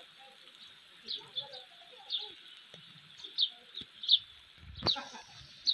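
Bird calls: about nine short, sharp chirps, each sweeping downward, repeated irregularly over a steady hiss. A single sharp knock sounds just before the end.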